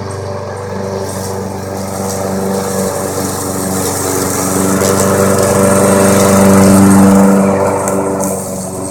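Remote-control lawn mower running steadily while it is driven, growing louder to a peak about seven seconds in and then dropping back about a second later.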